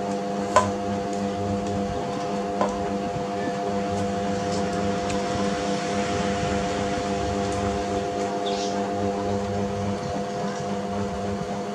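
A steady mechanical hum holding several fixed pitches, with two sharp knocks, a loud one about half a second in and a softer one about two and a half seconds in.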